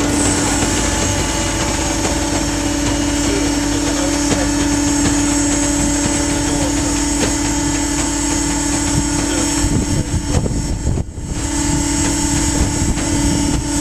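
Mill-size baler's hydraulic power unit running with a steady hum and whine. The sound drops out briefly about eleven seconds in, then resumes.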